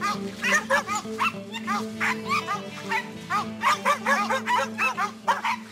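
Hog-hunting dogs barking rapidly and continuously, several barks a second, over background music with sustained notes.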